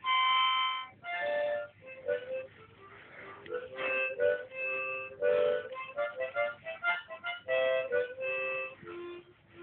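Harmonica played in quick runs of notes, with a dog howling along in long, pitched notes; the loudest held note comes in the first second.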